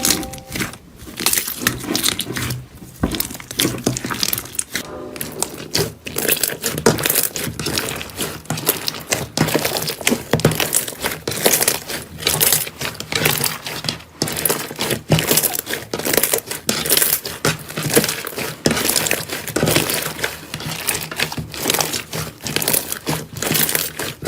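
Slime being squeezed and pressed by hand, giving a dense run of small crackling pops and squelches with brief pauses.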